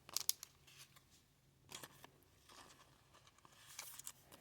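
Trading cards being handled: faint swishes and light taps as cards slide off one another and are set down, in a few short clusters.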